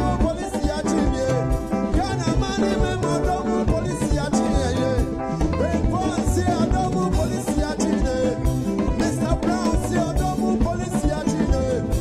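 Live band playing an upbeat dance number on keyboard, electric guitar, bass guitar and drum kit, with a steady beat and a man singing into a microphone over it.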